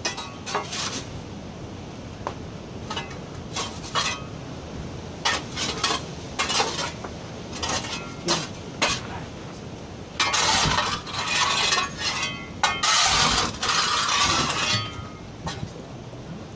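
Hard objects clinking and knocking together again and again, with two longer rattling clatters around ten and thirteen seconds in that are the loudest part.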